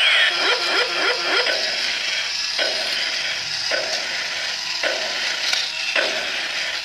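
Millennium toy robot walking, its motor and gearbox running with a soft, hissy whir and a repeating stepping sound about once a second. One of its three inner gears has been replaced, and the gearbox now runs a lot more silent.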